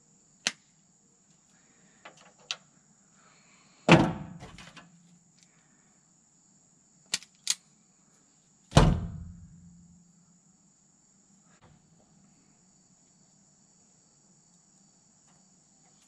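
Wire cutters and strippers snipping and stripping electrical wire: several sharp clicks, with two heavier knocks about four and nine seconds in. Crickets chirr steadily in the background.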